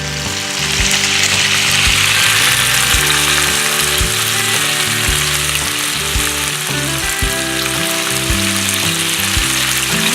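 Food sizzling loudly in a frying pan, a steady hiss that swells up about half a second in, with background music and a steady beat underneath.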